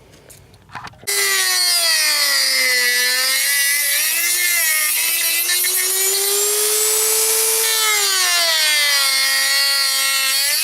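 A Dremel rotary tool switches on suddenly about a second in and cuts a notch in the plastic fuel-door housing. Its high whine sags and recovers in pitch as the cutting wheel bites and eases off.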